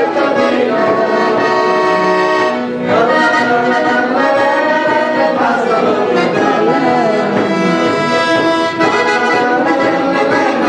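Piano accordion playing a tune, its reeds sounding held chords with melody notes over them that change every second or so.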